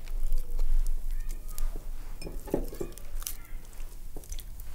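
Light handling noises at a kitchen table: scattered small clicks and soft knocks, with a brief low sound a little past the middle.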